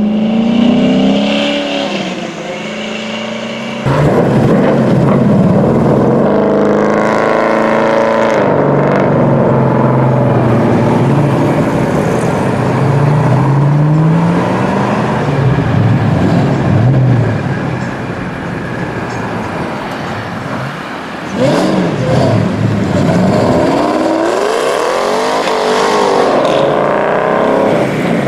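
Muscle-car engines, among them a Chevy Nova and a Ford Shelby GT500 Mustang, accelerating hard one after another, the pitch rising again and again as each car revs up through the gears. The sound changes suddenly about four seconds in and again about seven seconds from the end as one car gives way to the next.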